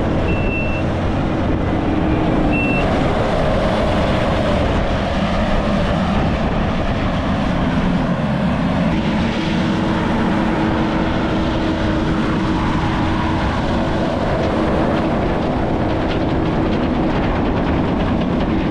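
Heavy vehicle's engine running steadily, with its reversing alarm giving a couple of beeps in the first few seconds before falling silent while the engine runs on.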